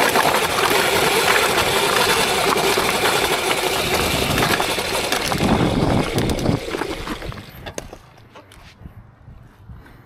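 Electric dirt bike ridden along a trail: a loud, even rush of wind, tyre and drivetrain noise that falls away about six or seven seconds in, leaving a low hiss with scattered small clicks and rattles.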